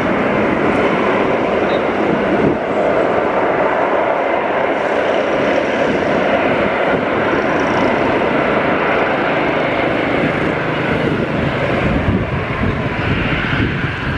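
Twin-engine jet airliner running its engines at takeoff power during the takeoff roll: a loud, steady jet roar.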